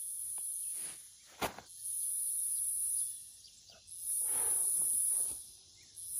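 Insects buzzing high in repeated bursts of about a second, every couple of seconds. A single sharp knock comes about one and a half seconds in, with footsteps and some handling noise in the grass.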